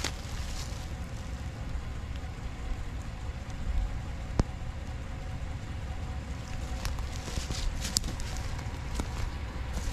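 Wind buffeting the microphone in a steady low rumble, with a single sharp click about four seconds in and a few short crunches of footsteps on dry leaves and grass near the end.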